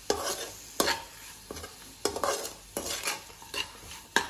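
Metal spatula scraping and knocking against a metal kadai while sliced green capsicum is stir-fried in oil, a stroke every second or so, over a light sizzle.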